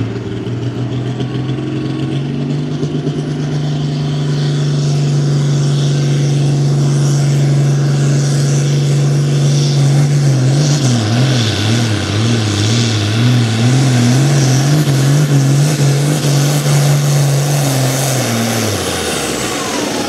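John Deere 4455 tractor's six-cylinder diesel running hard under load on the pulling sled, getting louder as it goes. From about halfway its pitch wavers up and down about once a second, then drops away near the end.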